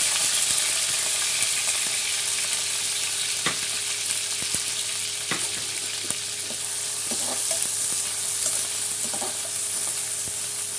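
Sliced onions sizzling in hot ghee and oil in a kadhai, loudest at the start and slowly easing. A few sharp clicks come from a steel ladle knocking the pan as the onions are stirred, more often in the second half.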